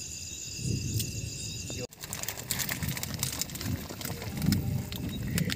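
Night insects trilling in several steady high tones over a low rumble; they cut off about two seconds in, followed by scattered clicks and clatter around a pot on a wood fire.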